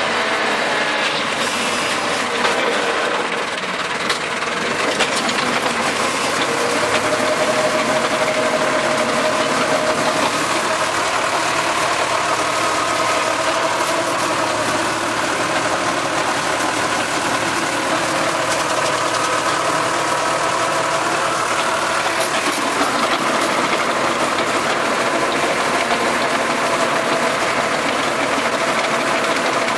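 Tractor engine running steadily while powering a rear rotary tiller that churns through weeds and soil, its pitch wavering slightly.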